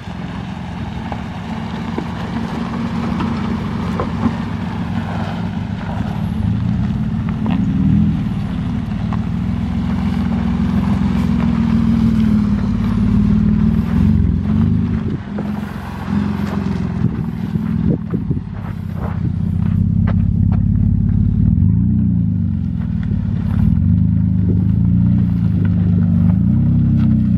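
Engine and cut-off exhaust of a 2019 Toyota Highlander running as it crawls along a rocky dirt trail, the engine note rising and falling with the throttle, with occasional small knocks.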